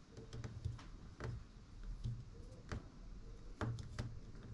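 Irregular faint clicks and light taps of a small screwdriver and small parts being handled while screws are fitted into a model car's seat.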